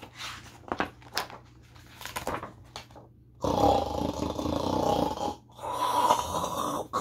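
A woman making a loud, drawn-out, exaggerated sleepy vocal noise, like a big yawn or snore, in two long breaths starting about halfway in. Before it come a few soft rustles and taps as a book page is handled and turned.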